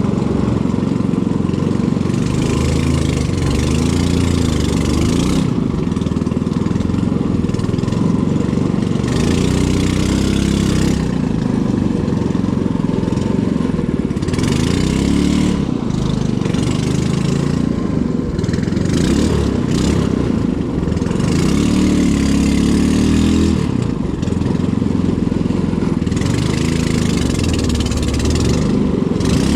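A small engine running steadily, its pitch shifting up and down now and then as the speed changes.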